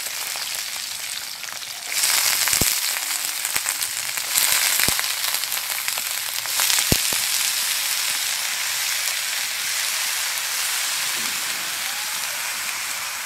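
Bottle gourd pieces sizzling hard in hot oil in a kadai, the hiss growing louder in two steps in the first few seconds. A few sharp clicks come through the sizzle.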